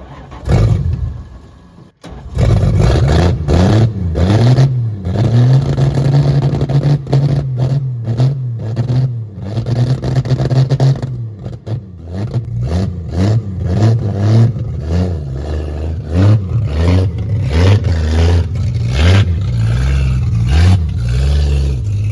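Car engine running and revving, its pitch rising and falling repeatedly, with a short break about two seconds in.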